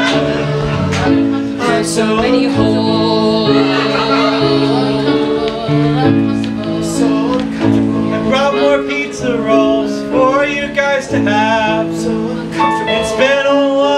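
A keyboard playing sustained chords that change every second or so, with a voice singing over it from about eight seconds in.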